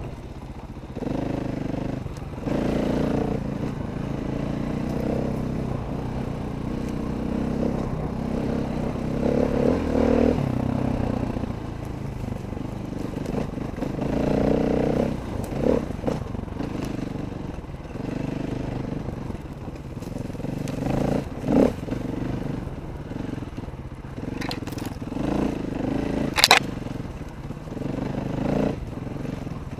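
Dirt bike engine revving up and down in surges as the bike rides a trail, heard from on board, with a few sharp knocks.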